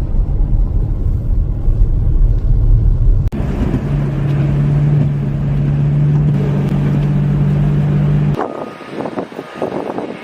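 Vehicle engine running, a low rumble that cuts about three seconds in to a steady engine drone. Near the end it cuts again to quieter scattered clicks.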